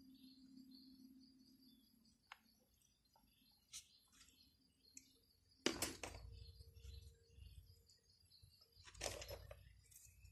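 Quiet garden ambience: small birds chirping on and off over a steady high whine. There are a few faint clicks and two brief louder rustles, about six and nine seconds in.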